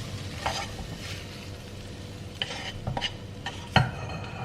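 Stirring and scraping pasta and broccoli in a sizzling frying pan, with several sharp clinks of the utensil against the pan, the loudest a little under four seconds in.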